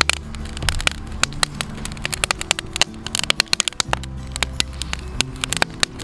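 Wood fire crackling and popping irregularly in a stainless steel fire grill, over low sustained background music.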